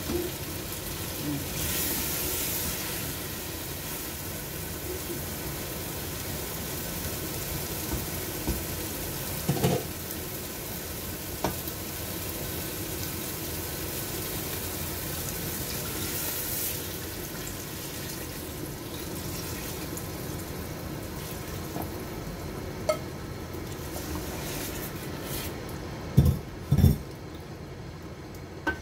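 Curry sizzling and frying in a stainless steel pot, stirred with a wooden spoon that now and then knocks against the pot, twice loudly near the end.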